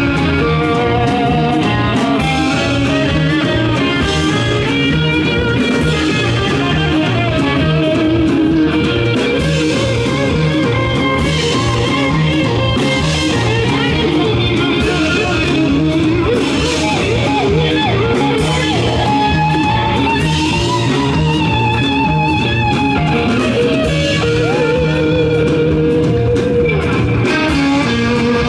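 Rock band playing live with no vocals: electric guitars over bass and drums.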